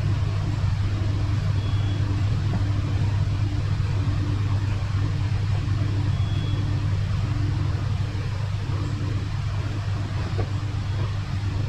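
A motor or engine running steadily with a low hum, and a faint pulsing beat above it.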